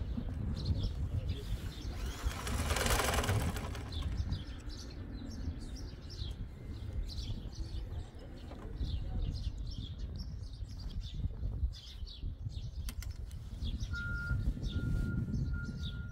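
Small birds chirping again and again over a low rumble, with a loud rustling swoosh a few seconds in. Near the end a short high beep repeats about every half second.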